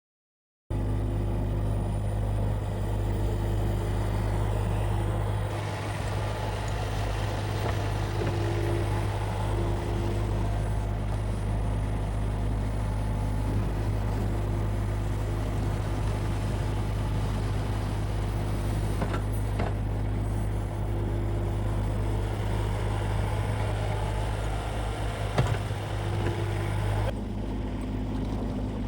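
Mini excavator engine running steadily under load while plowing snow with its dozer blade and bucket, with a single sharp knock about 25 seconds in.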